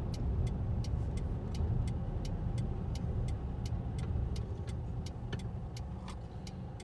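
Car cabin noise while driving: a low, steady rumble of engine and tyres, with a faint regular ticking about three times a second from the turn indicator as the car turns at a junction.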